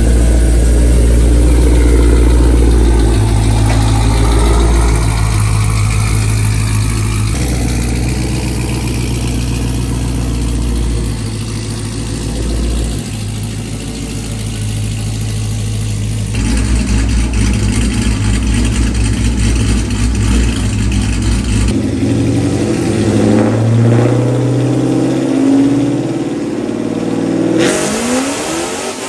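Dodge Challenger R/T's supercharged, cammed 5.7-litre Hemi V8 running in several short cut clips: a deep idle with a rhythmic, uneven beat and a few revs. Near the end a louder run-up begins as the car starts a pull on the chassis dyno.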